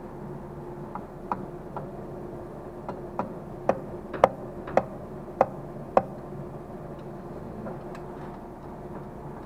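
A metal tool clinking against the spring, stud and housing of a saw sharpening machine's z-axis mechanism while a replacement spring is being levered onto its stud: about a dozen light metallic ticks, each with a brief ring, loudest between four and six seconds in. A steady hum runs underneath.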